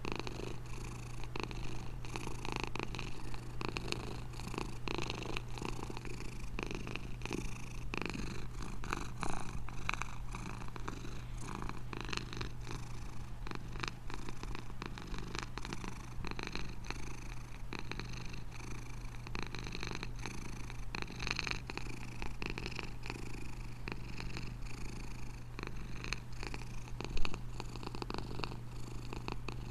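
Domestic tabby cat purring steadily while being stroked, a continuous pulsing rumble, with a single brief louder knock near the end.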